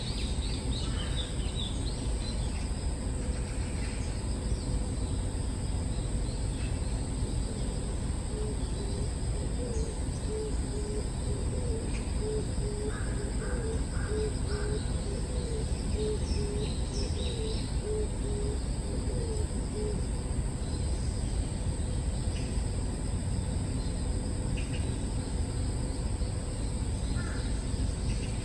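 Outdoor ambience with a steady low rumble and a steady high insect-like whine, scattered bird chirps, and a bird's low hooting call repeated about once or twice a second for roughly ten seconds in the middle.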